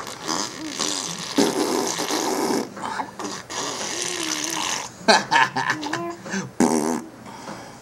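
Imitation fart noises made by people, a string of drawn-out buzzing blurts in quick succession, some with a wobbling pitch.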